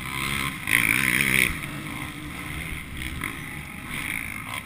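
Racing quad (ATV) engines running, revving up and down for about the first second and a half, then running more steadily.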